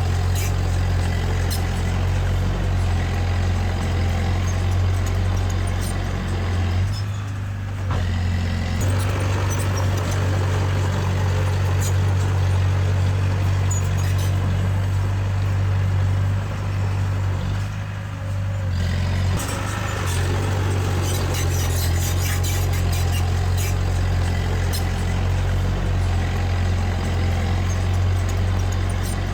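Diesel engine of heavy earthmoving machinery, a bulldozer or dump truck, running steadily with a strong low drone. The sound briefly drops away twice, about seven and eighteen seconds in.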